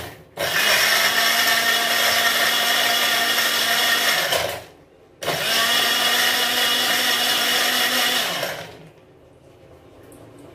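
Electric countertop blender (mixer-grinder) pulsing a jar of mango pieces, sugar, water and ice cubes into juice. There is a brief pulse right at the start, then the motor runs about four seconds, pauses briefly, runs about three and a half seconds more, and stops.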